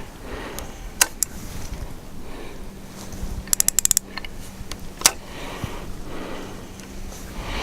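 Fishing tackle being handled: several sharp mechanical clicks, with a quick run of about eight ratchet-like clicks about three and a half seconds in and a loud single click about five seconds in.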